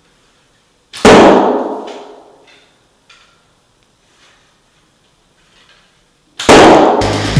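Arrows striking a board target: a loud, sharp hit about a second in that rings out and fades over about a second, then a second hit near the end. Music starts just after the second hit.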